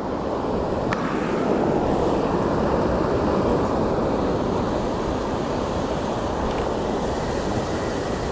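Water spilling over a low concrete weir and the river rushing past: a steady, even rush of water.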